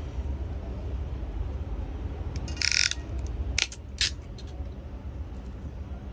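Ethernet cable wires being trimmed with a cutting tool: a short rasping snip about two and a half seconds in, then two sharp clicks about a second later, over a steady low background rumble.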